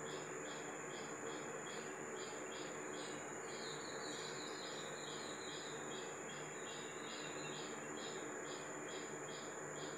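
Insect chirping in an even rhythm, about three short chirps a second, over a steady high-pitched tone and a faint low hum.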